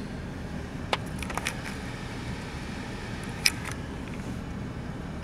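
Steady low rumble of a minivan idling, heard from inside the cabin, with a few small clicks and one sharper click about three and a half seconds in.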